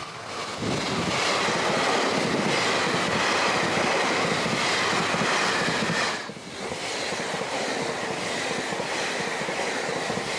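Taiwan Railway TEMU2000 Puyuma tilting electric multiple unit passing at speed. The rail and wheel noise rises sharply about half a second in and stays loud and steady, with a high whine over it and a brief dip about six seconds in.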